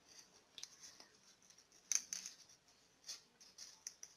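Folded paper of an origami flower crinkling and rustling faintly as fingers curl and press its petals, in a string of short irregular crackles, the sharpest about two seconds in.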